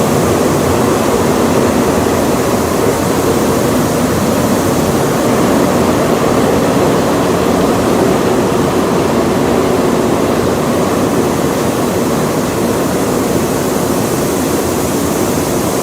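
Flour mill machinery running: a loud, steady, even mechanical noise with no distinct beat.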